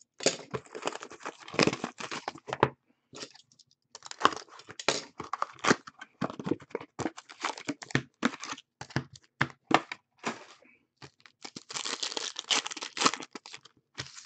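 A cardboard hockey card box being opened and its foil card packs handled and torn open: dense paper-and-foil crinkling and tearing with sharp clicks and taps. It is heaviest in the first two or three seconds and again about twelve seconds in, with scattered rustles and ticks between.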